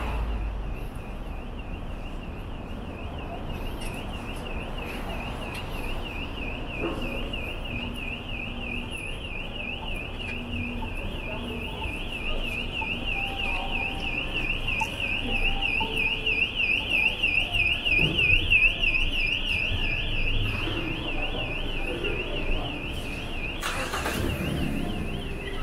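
Car alarm siren sounding continuously: a high electronic tone warbling up and down about four times a second, growing louder to a peak in the middle, then fading. City street traffic rumbles underneath.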